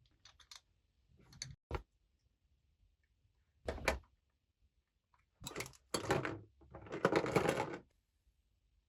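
Plastic toy pieces being handled: a few light clicks, a knock about four seconds in, then a couple of seconds of clattering and rustling near the end.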